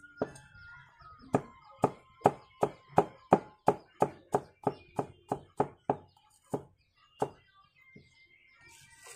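Knife chopping fresh turmeric root on a thick round wooden chopping block: a quick, even run of sharp chops, about three a second, then two slower ones before it stops.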